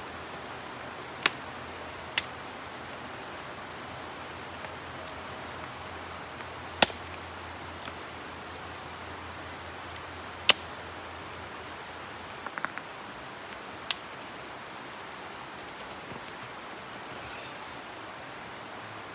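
Sharp cracks of conifer branches and twigs, about half a dozen spread a few seconds apart with a quick cluster near the end, as cut boughs are handled and laid out on the ground. A steady rushing hiss runs under them.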